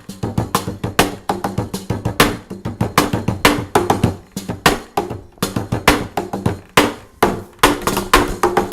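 WalkaBout wearable hand drum, a strap-on cajon-style drum, played with the hands in a fast, steady groove of many strikes a second, low bass tones mixed with sharp slaps. The snare attachment adds a bright rattle to the strikes.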